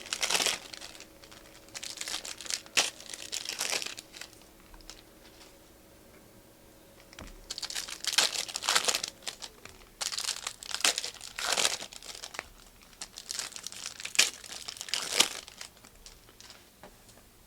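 Plastic and foil trading card packaging being crinkled and torn open by hand, in several bursts of crackling with short pauses between them.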